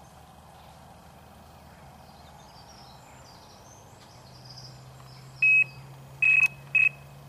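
Electronic bite alarm on a fishing rod beeping: three short beeps at one pitch, about five, six and a half, and seven seconds in, unevenly spaced. It is the sign of a run, a fish taking the bait and pulling line.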